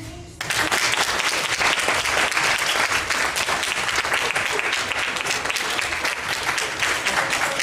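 Audience applause, starting suddenly about half a second in and keeping up as dense, steady clapping.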